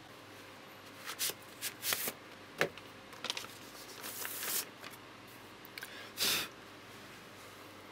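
A 12-inch vinyl record and its card sleeve being handled: a string of short rustles and light clicks and scrapes, the longest rustle about six seconds in.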